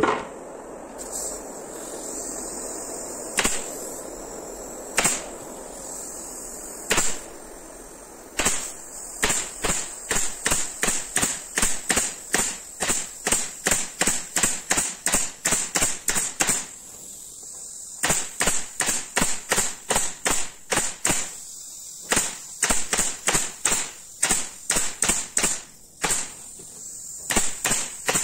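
Pneumatic upholstery stapler firing staples through foam into a plywood seat board. A few single sharp shots come in the first several seconds, then quick runs of about two shots a second, broken by short pauses.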